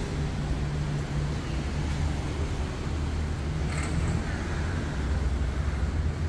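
Street traffic noise: a steady low engine rumble and hum, with one brief sharp clack about four seconds in.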